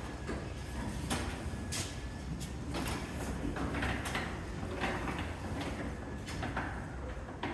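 Sectional garage door with 32-inch radius track rolling along its track: a steady rumble with a few scattered clicks.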